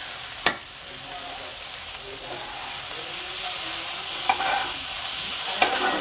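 Mourala small fish in a thick spicy masala sizzling in a karai as it is stirred with a spatula. There is a sharp knock of the spatula against the pan about half a second in, and a few more knocks and scrapes near the end.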